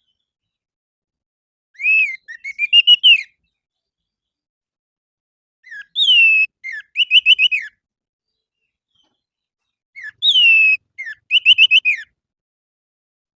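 Orange-headed thrush (anis merah) singing: three short phrases a few seconds apart, each a slurred whistle followed by a quick run of clear whistled notes.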